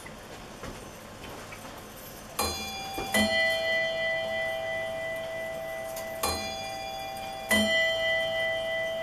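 Astronomical skeleton clock's striking work sounding a two-note strike, high then low, twice: once about two and a half seconds in and again about six seconds in. Each note rings on, and faint clicks of the strike levers come before the first pair.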